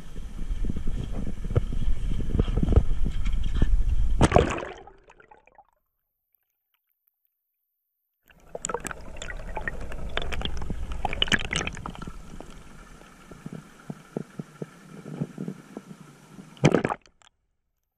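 Muffled sloshing and gurgling of sea water around a camera in a waterproof housing, with many small knocks. The sound cuts out completely between about five and eight seconds in, then returns, and stops again after a sharp knock near the end.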